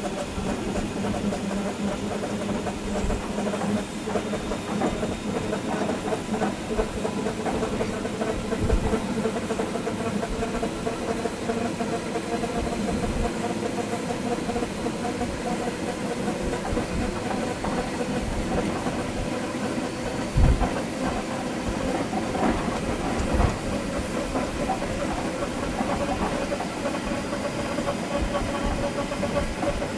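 Train running along the track, heard from the driver's cab: a steady rumble and hiss with a few even hums, and two short louder knocks about two-thirds of the way through.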